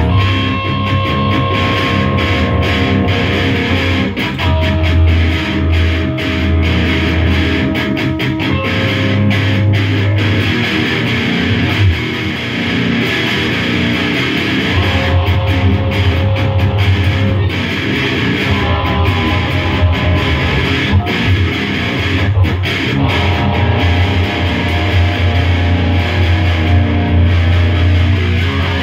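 Electric guitar and bass guitar played loudly together in a rock jam, with sustained notes over a strong bass line.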